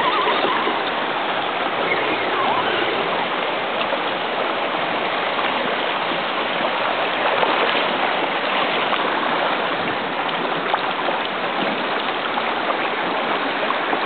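Steady rush of a shallow, fast-flowing creek over rocks.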